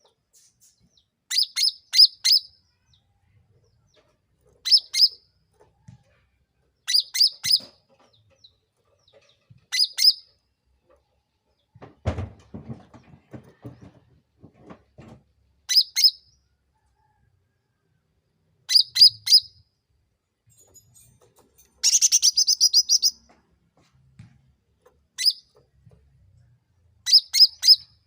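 Cucak ranting singing: short phrases of three or four sharp, high, rapid notes, repeated every two to three seconds, with one longer rapid chattering run about two thirds of the way through. A lower rattling sound comes about twelve seconds in.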